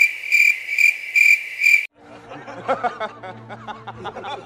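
Cricket chirping, evenly repeated about two chirps a second, as an edited-in sound effect; it cuts off suddenly about two seconds in. A man then chuckles softly in an inserted film clip.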